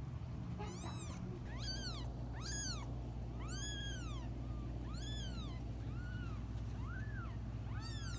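Nine-day-old kittens mewing: a string of about nine thin, high mews, roughly one a second, each rising and then falling in pitch.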